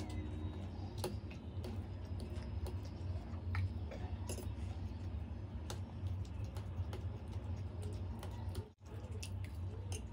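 A metal fork clicking and scraping against a steel plate while scooping macaroni, with chewing mouth sounds, as scattered short clicks over a steady low hum. The sound drops out briefly about nine seconds in.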